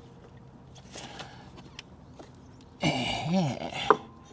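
A person's strained voice for about a second, its pitch rising and falling, then a single sharp click just before the end.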